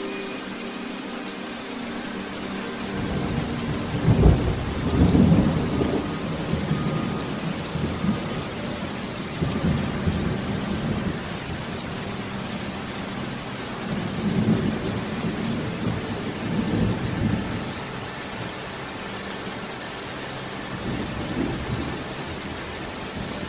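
Steady rain with low thunder rumbling in several rolls, the strongest about four seconds in.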